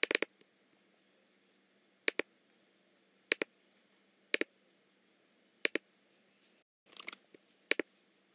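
Computer mouse button clicks, each a quick press-and-release pair, six of them spaced a second or so apart, with a short run of softer ticks about seven seconds in.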